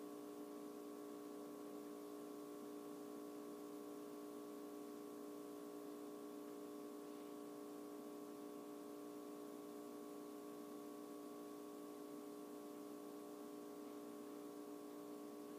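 Faint steady hum made of several fixed tones: room tone.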